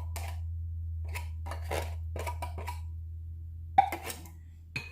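A utensil stirring a thick mix of condensed milk and cream in a bowl: short scraping strokes about two a second, then a louder knock against the bowl near the end, over a steady low hum.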